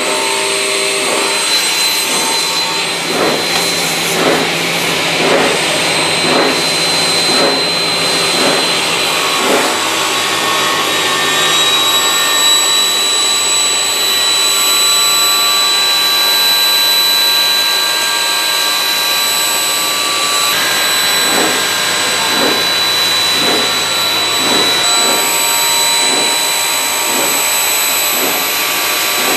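Automatic aluminum cutting saw (DS A450) running and cutting through a hollow aluminum tube: a loud, steady machine noise with a high-pitched whine. It pulses about once a second during the first third and again in the last third.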